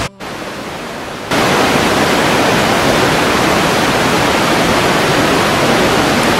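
Loud, steady outdoor rushing noise, an even hiss with no tones in it. It drops out for a split second just after the start, then gets louder about a second in and holds steady.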